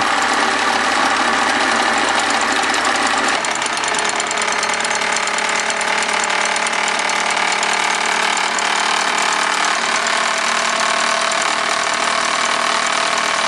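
Falk 1442/0 toy steam engine running fast under live steam, driving a Bowman toy circular saw through a string belt: a steady mechanical clatter, with the rattle of the engine's base vibrating on the table. The sound eases slightly about three seconds in.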